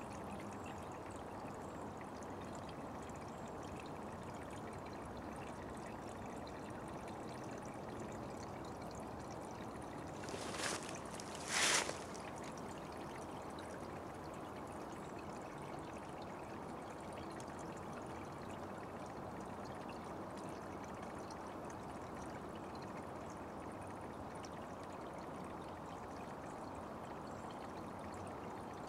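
Small forest brook trickling and running steadily, with two short louder noises about ten and twelve seconds in.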